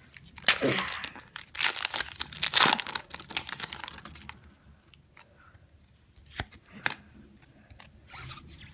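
Foil Pokémon booster pack wrapper being torn open and crinkled, in loud rustling tears over the first three seconds or so. A couple of light taps follow as the cards are handled.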